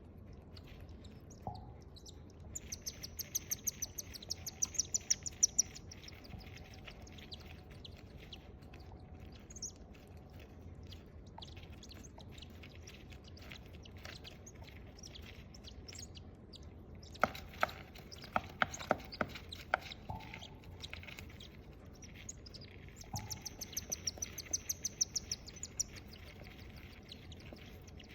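Nine-day-old cockatiel chicks calling in two bouts of fast, buzzy chirps that build in loudness, one near the start and one near the end. A run of sharp clicks comes in between.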